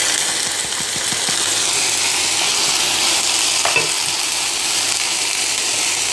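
Half-boiled rice sizzling in hot oil and melted sugar in a nonstick frying pan, a steady hiss, while a spatula stirs it; a single knock a little under four seconds in.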